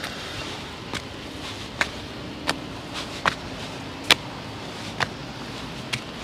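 Footsteps on a rocky mountain path: a sharp step about every three-quarters of a second over a steady low background hum.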